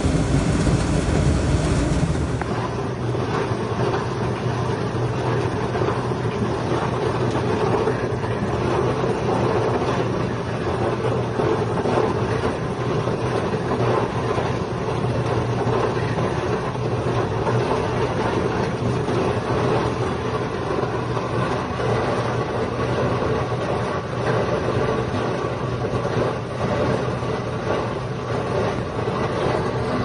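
American gas clothes dryer running with its gas burner lit and burning in the combustion tube: steady machine noise from the motor and blower, with a low hum.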